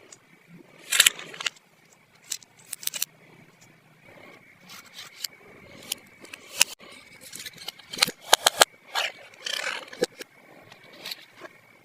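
Small plastic toy pieces and packaging being handled: irregular sharp clicks and taps, with a quick run of clicks about eight seconds in, and short rustling scrapes about a second in and again near the end.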